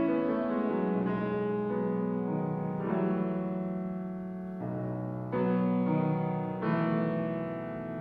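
Grand piano played solo: slow, sustained chords, a new chord struck every second or two and left ringing.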